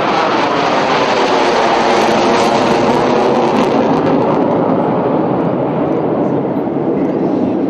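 General Dynamics F-111's twin TF30 afterburning turbofans running loud on a close, low display pass, a dense jet rush whose pitch slides steadily downward as the aircraft goes by and pulls away.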